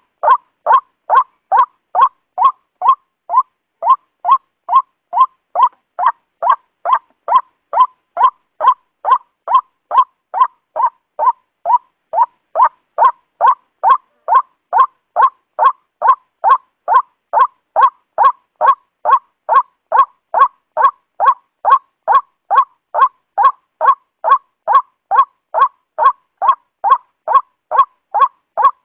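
Waterhen (pani murgi) calling: one short call note repeated steadily, about two a second, at an even pace.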